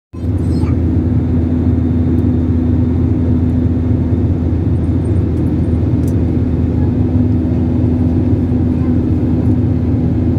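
Jet airliner cabin noise in flight: a steady drone of engines and rushing air with a constant low hum. It cuts in abruptly just after the start.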